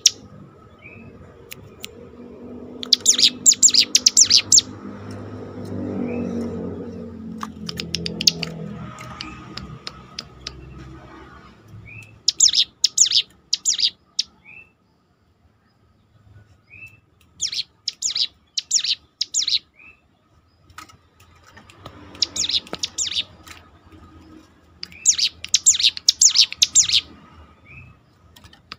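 Ciblek gunung (cigun), a prinia songbird, singing in bursts of rapid, sharp high notes, five bursts in all, with short single chirps between them. A low rumble runs underneath for the first ten seconds or so.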